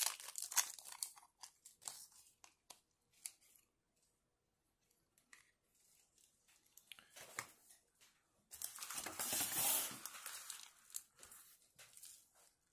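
Thin clear plastic bags crinkling and rustling as they are pulled open by hand. The sound comes in scattered crackles, with a longer, louder rustle about two-thirds of the way through.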